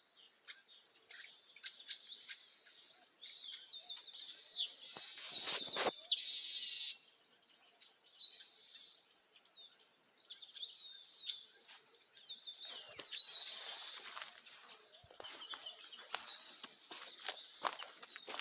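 Several wild birds in caatinga scrub chirping and singing, many short quick notes and falling whistles overlapping. About six seconds in there is a sharp click, followed by roughly a second of hissing.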